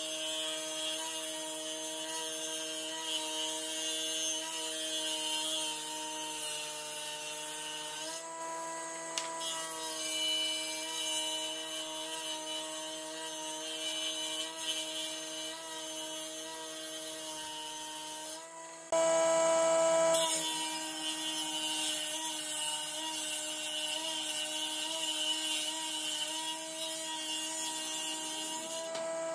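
Electric power tool working pallet wood, its motor running at a steady pitch; the sound shifts abruptly about 8 and 19 seconds in as the tool or shot changes, and it is loudest briefly around 19–20 seconds.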